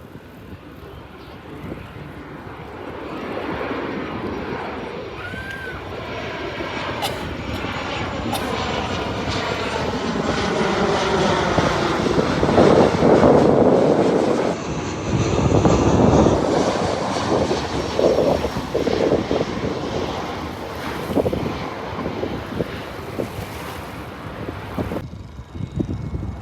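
Airliner passing overhead on landing approach. Its engine noise swells to a peak about halfway through, then fades away.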